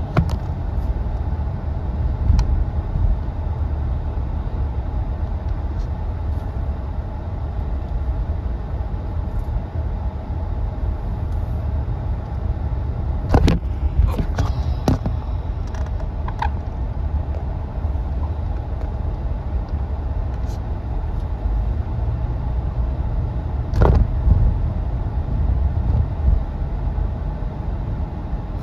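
Steady low rumble of a car driving, with a few sharp knocks about halfway through and another near the end.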